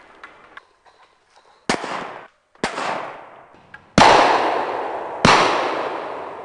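Four gunshots about a second apart, each trailing off in a long echo; the last two are the loudest.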